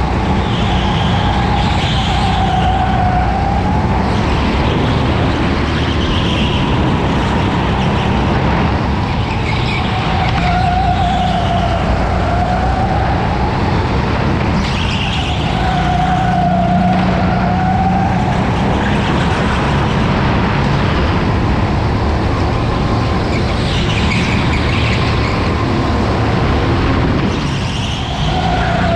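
Go-kart motor heard on board at racing speed, its whine rising and falling in pitch every few seconds as the kart slows for corners and speeds up again, over steady rushing noise.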